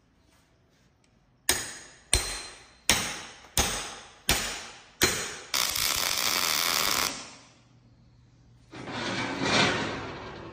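A hammer strikes steel six times in quick succession, each blow ringing and fading. Then a MIG welder's arc crackles steadily for about a second and a half. Near the end another stretch of steady crackling noise rises and fades away.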